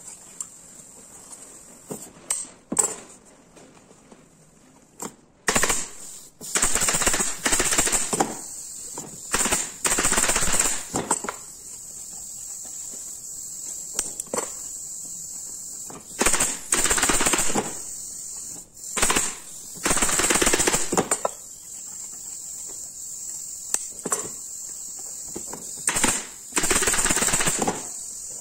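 Large scissors cutting through black vinyl upholstery covering in repeated runs of crunchy snips, each run lasting a second or two, along with rustling as the vinyl is handled. A steady high hiss runs underneath.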